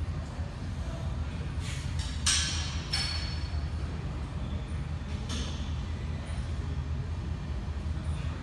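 Steady low rumble of gym ambience, with a few sharp metal clanks from the weight machines, the loudest a little over two seconds in, one near three seconds leaving a brief ring.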